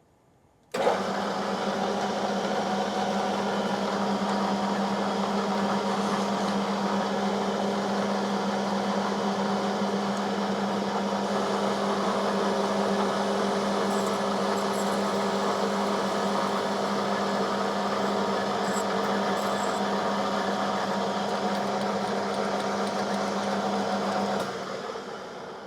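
Small metal lathe running at about 300 rpm, taking a light facing cut on the end of a 4140 steel shaft held in a fixed steady: a steady motor and gearing hum with a strong low tone, over the hiss of the cut. It comes in abruptly about a second in and dies away near the end.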